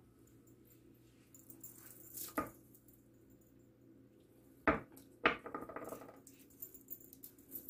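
Makeup bottles and containers being handled and set down: a few sharp clicks and clinks, the two loudest close together past the middle, the last ringing briefly, over a faint steady hum.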